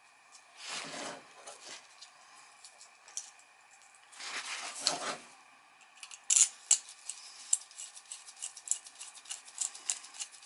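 Hand-handling noise: two brief rustling swishes, then a run of quick small metallic clicks and taps from about six seconds in, as the replacement furnace igniter and its small mounting hardware are handled.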